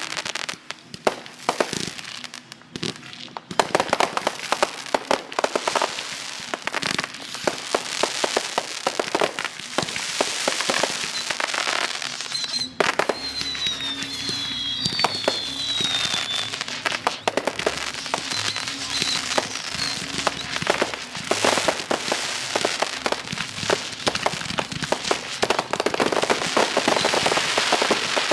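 Fireworks display: a dense run of bangs and crackling from bursting shells and firecrackers, with a few whistles falling in pitch about halfway through.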